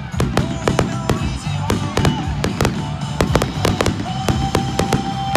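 Aerial fireworks launching and bursting in quick succession: many sharp bangs, several a second.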